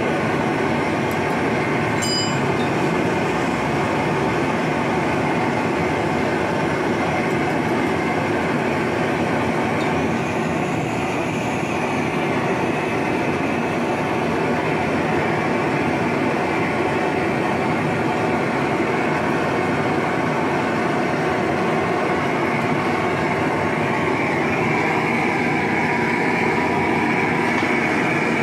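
LPG gas torch burning with a steady roar, its flame melting scrap piston aluminium in a small steel crucible. About 24 s in, the sound changes and a steady high tone joins it as the flame is turned onto the steel mould.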